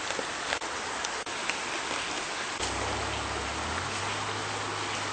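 A steady, even hiss that sounds like rain, with a few faint ticks. A low hum comes in about two and a half seconds in and holds steady.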